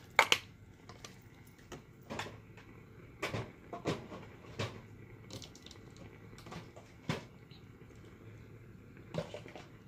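A handful of light knocks and clicks, about seven spread unevenly over several seconds, from small objects being handled and set down.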